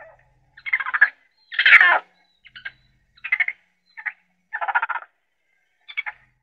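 Raccoon calling: about eight short, rapidly pulsed chittering calls with short silences between them, the loudest a little under two seconds in.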